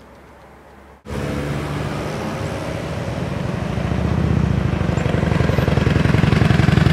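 A motor vehicle's engine starts sounding suddenly about a second in, running with a rapid, even beat, and grows louder from about four seconds in.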